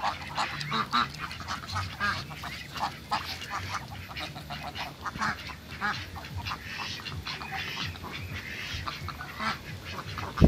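A flock of domestic ducks quacking, many short calls overlapping without a break.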